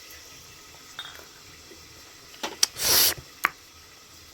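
Glasses and dishes clinking, as tea is served: a light clink about a second in, then several sharp clinks with a short rushing noise around three seconds in.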